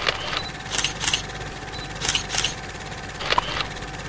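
Intro stinger for a TV news segment: electronic sound effects with clusters of two or three sharp hits about once a second over a steady tone, swelling into a low boom near the end.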